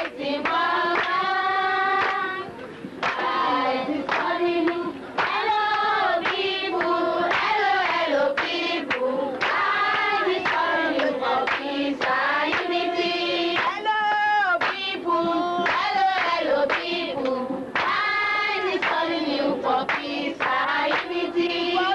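Women and girls singing together as a group, with hands clapping.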